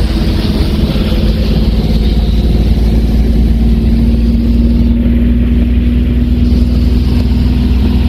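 Subaru Justy's three-cylinder engine heard from inside the cabin, pulling steadily with its note rising slowly, over a steady hiss of tyres on the wet road and rain.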